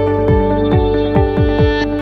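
Electronic music with a steady kick-drum beat under sustained synth chords.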